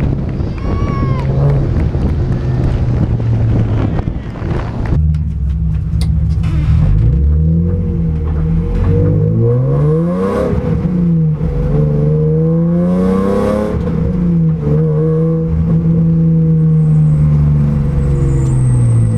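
BMW 323ti's 2.5-litre straight-six running at low speed, with wind noise on the microphone for the first few seconds. From about five seconds in it is heard from inside the cabin, revving up and down several times before settling to a steady pitch.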